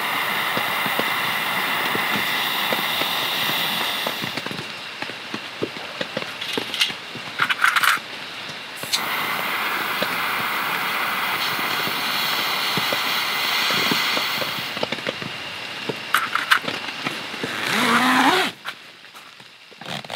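Rain pattering on a camping tent shelter: a dense run of small drop ticks over a steady hiss, broken by a few louder knocks.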